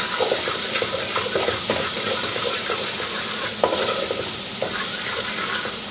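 Oil and garlic-and-lard seasoning frying in a large aluminium pot, sizzling steadily while a wooden spoon stirs and scrapes around the pot.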